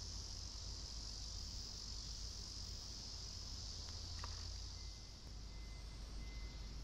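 A steady, high-pitched chorus of summer insects over a constant low rumble, with a brief faint chirp about four seconds in.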